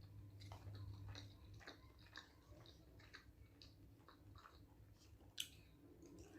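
A person chewing food close to the microphone, heard faintly as a string of small mouth clicks, with one sharper click about five and a half seconds in.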